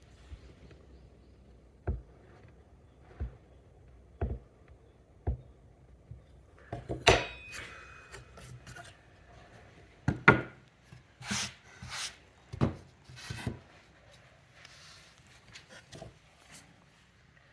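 Japanese carpenter's hammer striking a chisel to chop out waste wood from a halving joint, in about ten separate knocks at an irregular pace. The chisel scrapes and pares the wood between strikes, and one blow about seven seconds in rings briefly.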